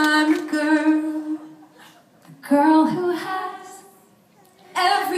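A woman's voice singing unaccompanied, a cappella, in three phrases with short pauses between them, each ending on a long held note.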